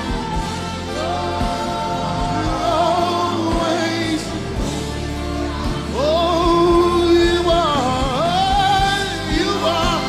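Live gospel worship music: voices singing long, wavering held notes over a steady band accompaniment, swooping up into a louder held line about six seconds in.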